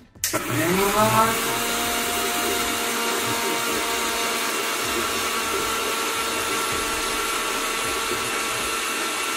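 Electric mixer grinder with a steel jar switched on just after the start: its motor whine rises quickly to speed over about a second, then runs steadily as it blends mustard seeds with water into a sauce.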